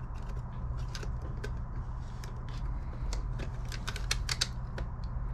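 Irregular small clicks and ticks of metal tweezers and fingers working a ribbon cable into its plastic connector on a disc drive circuit board and pressing the locking clip down. A faint steady hum runs underneath.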